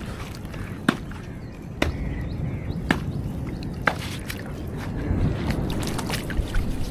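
Water sloshing, with sharp slaps or knocks about once a second and heavier sloshing building near the end.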